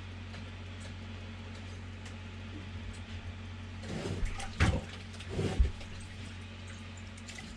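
Water splashing as a brook trout is pulled up through an ice-fishing hole, with a few louder splashes and thumps about four to six seconds in, over a steady low hum.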